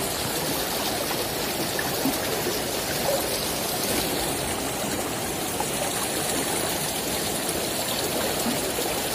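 Shallow river running over stones, a steady rush of flowing water.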